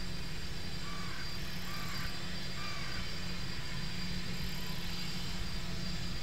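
A U-4 jet (military Gulfstream IV) taxiing, its two Rolls-Royce Tay turbofans running at low power: a steady low rumble with a thin, faint high whine. Three short falling chirps sound about a second apart near the start.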